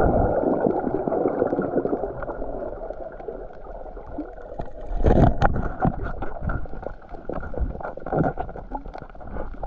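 Muffled underwater water noise picked up by a camera below the surface: gurgling and rushing with scattered small clicks, loudest in the first couple of seconds and in a gurgling burst about five seconds in.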